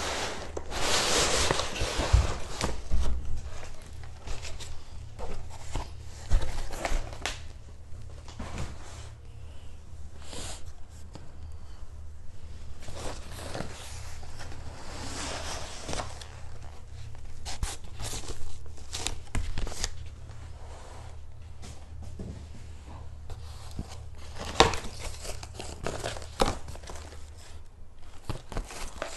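Cardboard shipping box being opened by hand: packing tape tearing and cardboard flaps rustling and scraping, with irregular taps and knocks on the box. The tearing is loudest in the first few seconds.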